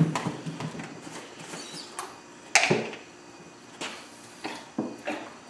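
A few knocks and bumps as a full plastic cubie of waste vegetable oil is picked up and lifted, the loudest one about two and a half seconds in.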